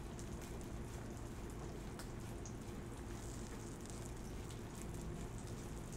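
Fish searing in butter in a pan, a faint steady sizzle, with a few soft taps of a chef's knife slicing herbs on a wooden cutting board.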